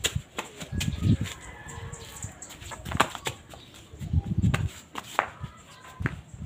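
A small child's flip-flop footsteps, slapping and scuffing irregularly on a concrete path, with a few bursts of low rumble about a second in and again near four seconds.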